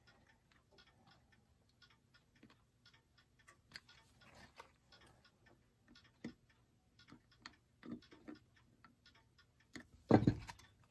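Small screwdriver tapping and scraping at the hands on a brass clock dial as it pries off friction-fit hands: a string of light metallic clicks, with one louder knock near the end.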